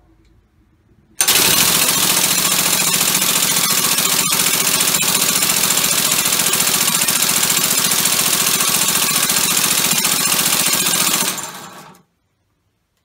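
Homemade six-cylinder, two-plate compressed-air engine running at speed: a loud, fast, even chatter with a steady hum and hissing air. It starts suddenly about a second in and shuts off near the end, dying away within about half a second. The run measures roughly 880 rpm.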